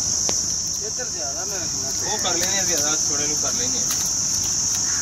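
Steady, high-pitched chorus of insects, a continuous shrill drone that does not let up.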